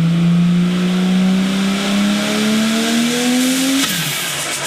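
Turbocharged car engine accelerating hard, its pitch rising steadily for about four seconds. The throttle then snaps shut near the end: the revs drop and the hiss and fast chatter of turbo flutter begin.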